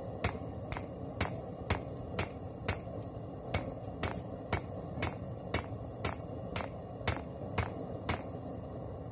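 Hand hammer striking a red-hot layered Damascus billet on a 55 lb steel anvil, about two blows a second, with a short metallic ring to each; the blows stop a little after eight seconds in. The billet is being hammered to set and complete the forge weld of its bandsaw-blade and pallet-strap layers.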